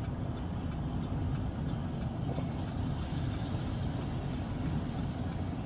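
Steady engine and road noise of a vehicle being driven on an icy, snowy road, a constant low rumble.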